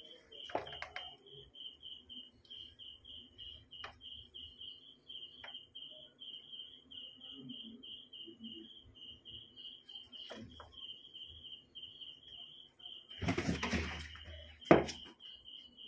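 A cricket chirping steadily in short high pulses, about four or five a second. Near the end a loud burst of rustling and scuffling comes in, followed by one sharp knock.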